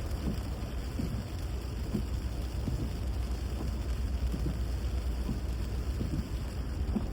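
Vehicle travelling in the rain: a steady low road rumble with the hiss of rain and wet road noise.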